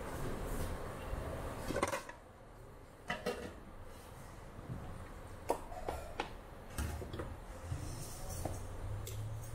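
Metal utensils and bowls clinking at a noodle stall: a ladle, a noodle basket and bowls knocking against steel pots. The sharp clinks come a few at a time, some ringing briefly, over a low steady rumble.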